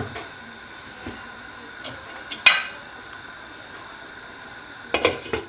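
A non-stick frying pan of rajma dal simmering with a faint steady hiss. There is a single sharp clink about halfway through, then a few clinks near the end as a glass lid is set down onto the pan.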